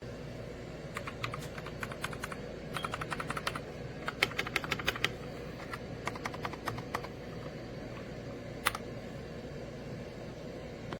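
Typing on a Redragon K668 full-size mechanical keyboard: quick runs of key clicks in several bursts, the densest a few seconds in, and a single keystroke near the end, over a steady low hum.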